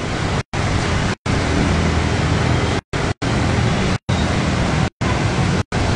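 Traffic wading through a flooded road: a steady rush of water spray and tyre wash over a low engine hum from a car and motorbikes. The sound cuts out completely for brief moments several times.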